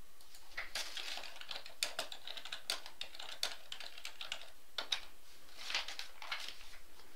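Someone typing on a computer keyboard: irregular clicks and taps, a few sharper than the rest.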